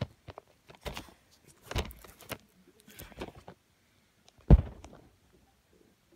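Camera handling noise: irregular rustles and knocks as the camera is moved against cloth, with one loud thump about four and a half seconds in.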